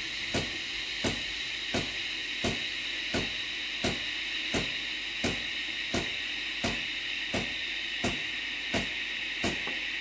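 Gaggia Brera's Pannarello steam wand steaming milk in a stainless jug: a steady hiss with a short tick about every 0.7 seconds from the machine's pump working in steam mode.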